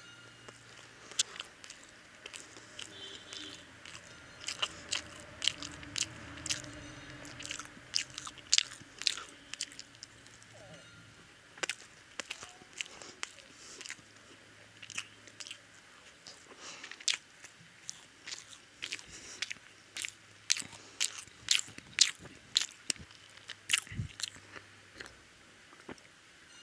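A person biting and chewing egg-coated fried toast dipped in chicken curry: irregular wet mouth clicks and crunches, coming thicker in the second half. One dull low knock near the end.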